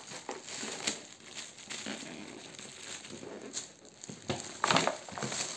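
Shiny gift-wrapping paper crinkling and tearing as it is pulled off a cardboard gift box, in irregular rustles that grow louder near the end.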